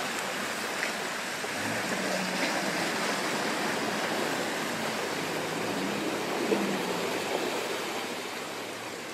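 Land Rover Defender's tyres ploughing through a water-filled muddy rut: a steady rush of churning, splashing water and mud spray. A faint low engine note runs beneath it.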